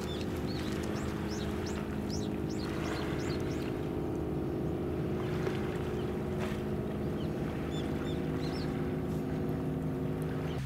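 Steady machinery hum of a naval destroyer, several low tones held unchanging, with short high bird chirps over it, a run of them in the first two seconds and more again near the end.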